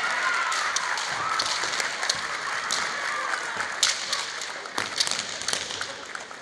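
High, drawn-out kiai shouts from girls' kendo fighters at the start and again about a second in. Then a few sharp clacks of bamboo shinai and bare feet stamping on the wooden floor, over a steady hiss of hall noise that fades toward the end.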